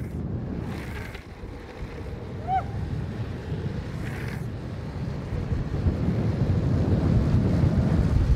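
Wind rushing over the microphone at downhill speed, over the rumble of longboard wheels rolling on asphalt, growing louder toward the end. A brief high chirp sounds about two and a half seconds in.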